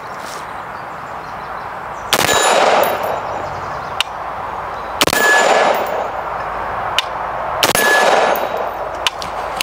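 Three single shots from an AR-15-style rifle in .223 Wylde/5.56, fired slowly about three seconds apart, each followed by about a second of echo. Faint sharp ticks sound between the shots.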